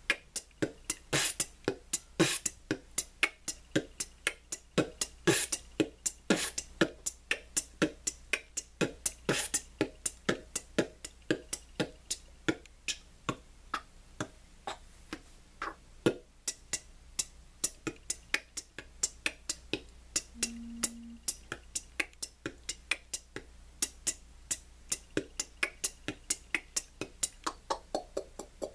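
A man beatboxing the basic sounds, as a learner: a steady, quick rhythm of sharp mouth-made clicks and percussive pops, about three to four a second, with a brief low hummed note a little past the middle.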